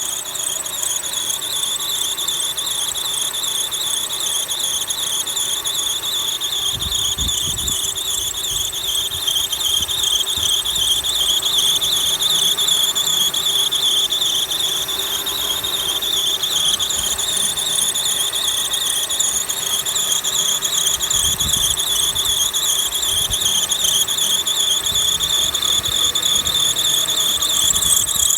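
Subaru EZ30 flat-six engine running with a continuous high-pitched whistle from its accessory drive belt, wavering slightly in strength. Twice a brief low rumble is heard under the whistle.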